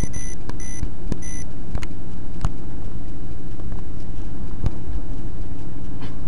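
Steady low rumble of a car on the move, heard from inside the cabin, with a quick run of short electronic beeps in the first second and a half and a few scattered clicks and knocks.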